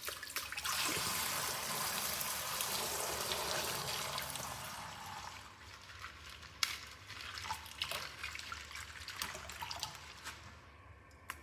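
Toy packaging being handled and opened: a steady rustling hiss for about four seconds, then fainter rustling with a few sharp clicks and snaps.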